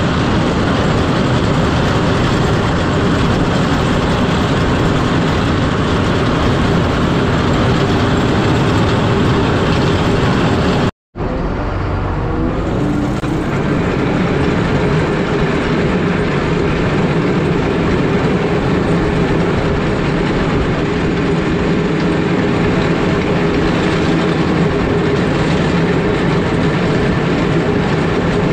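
Cat 140M3 motor grader working, its blade with bit boards and triangle teeth scraping and shattering ice on the road: a loud, steady grinding and rattling over the diesel engine. The sound cuts out for an instant about eleven seconds in, then the engine and rattling go on.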